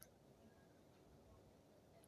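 Near silence: room tone, with one faint click at the very start.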